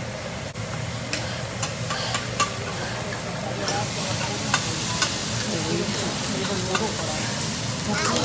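Fried rice sizzling on a steel teppanyaki griddle while a metal spatula scrapes and taps the plate in sharp clicks; the sizzle grows louder a little over halfway through.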